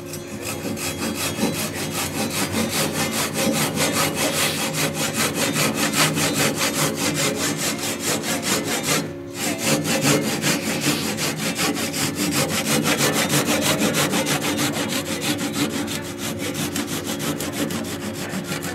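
Japanese hand saw cutting into the end of a timber beam with an even rhythm of strokes, about three a second, pausing briefly about nine seconds in. A steady low hum runs underneath.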